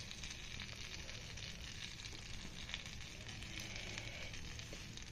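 Melted butter sizzling in a frying pan with dried curry leaves and mustard seeds: a low, steady, even hiss.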